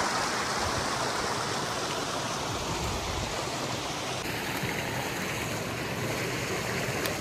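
Creek water rushing steadily.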